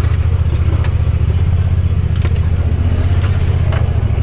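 Off-road vehicle engine running at a steady speed, a low drone, with a few sharp knocks during it.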